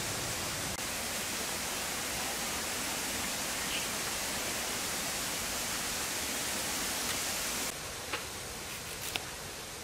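Steady even hiss that drops in level near the end, after which a few faint clicks of a knife blade paring a potato are heard.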